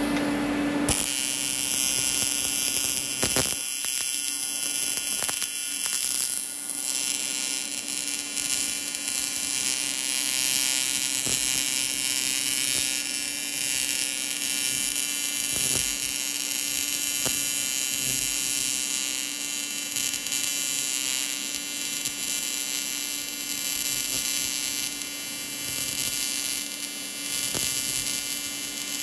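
AC TIG welding arc on aluminium, a steady electric buzz that starts about a second in and runs on evenly as the seam is welded.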